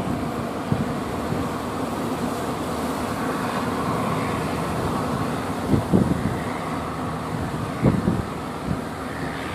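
Engine of a wooden fishing boat running steadily as it pushes through breaking waves, with water rushing along the hull. A few short low thumps of wind on the microphone about six and eight seconds in.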